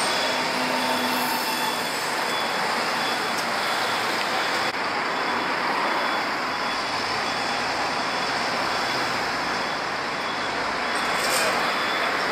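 Steady city street traffic noise, with buses and cars running past.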